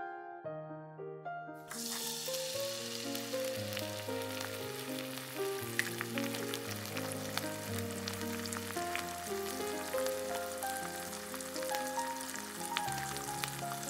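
Spice-coated chicken strips deep-frying in hot oil in a wok: a steady sizzle with crackling pops that starts suddenly about two seconds in, as the first pieces go into the oil. Background music with plucked notes plays throughout.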